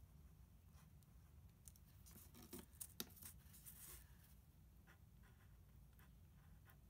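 Faint scratching of a pen writing on a plastic plant label, with a brief flurry of small scrapes and clicks from handling the label about two to four seconds in.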